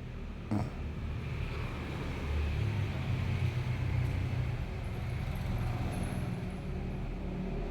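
A sleeping young man snoring: a low, rough rumble that swells for a couple of seconds with each breath. There is a single sharp knock about half a second in.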